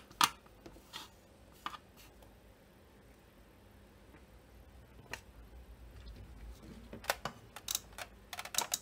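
Scattered sharp clicks and light knocks of a soldering iron being lifted from its stand and handled over a circuit board, then a quick run of clicks near the end as a magnifier lamp is pulled over the workbench.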